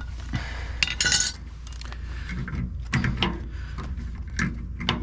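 Steel parts of an AMF 82-30 pinsetter's pit hinge and its tension spring clinking and knocking as they are worked loose by hand: one sharp metallic clink about a second in, then a run of short knocks and rattles near the end.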